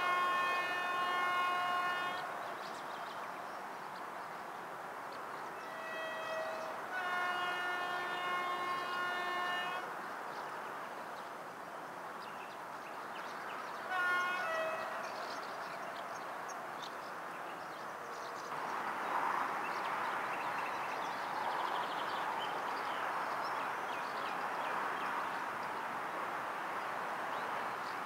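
Train horn sounding a series of blasts: a long one that ends about 2 seconds in, a short one, another long one, then a brief one. These are the Rp1 'attention' warning signal given because of a faulty level-crossing barrier. After the blasts, a steady rushing noise sets in and lasts to the end.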